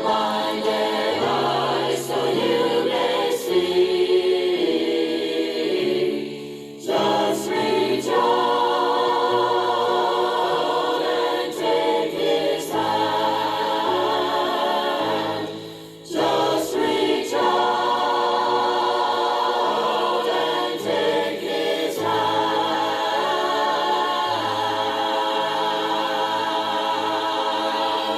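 Choir singing a gospel song in several-part harmony, with two short breaks between phrases.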